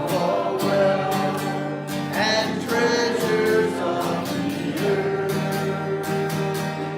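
Worship music: an acoustic guitar strummed in a steady rhythm under sustained chords, with singing.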